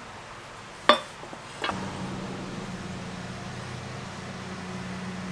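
A sharp clink of hard parts about a second in, then a smaller knock, after which a steady low hum starts and keeps going.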